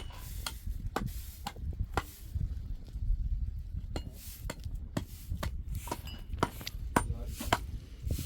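A string of sharp clicks and light knocks at uneven spacing, often about half a second apart with a short pause partway through, over a low rumble.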